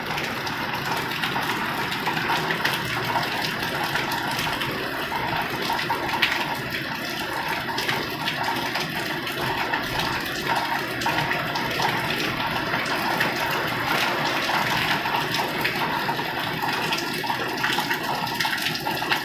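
Steady, unbroken rushing background noise at an even level.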